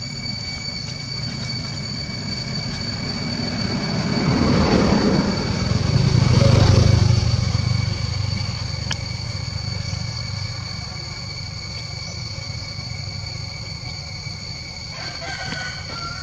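A motor vehicle passing by. Its engine noise swells to its loudest about six to seven seconds in, then fades away, over a steady high-pitched whine.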